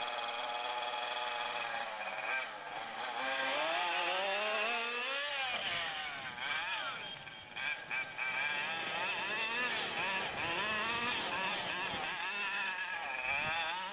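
Two-stroke petrol engine of a 1:5-scale FG radio-controlled monster truck revving up and down as it drives. The pitch climbs in one long rise about four seconds in, then rises and falls about once a second.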